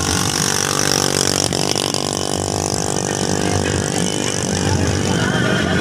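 A motor vehicle engine running steadily amid street noise, its tone settling about one and a half seconds in.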